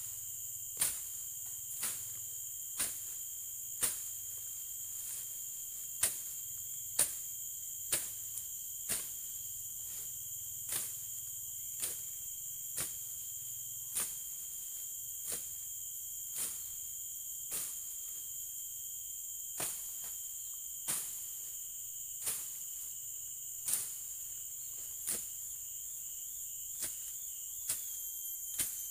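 Slasher blade chopping through grass and undergrowth in sharp strikes about once a second, over a steady high-pitched drone of insects.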